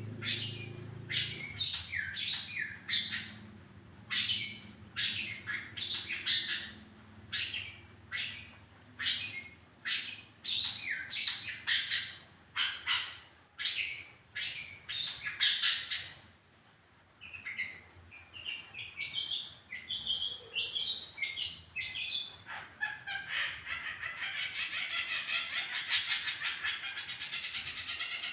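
Long-tailed shrike (cendet) giving harsh, repeated calls, roughly one or two a second, for about the first sixteen seconds. Then comes a softer, varied run of chattering notes, which turns into a fast, continuous chattering song in the last five seconds or so.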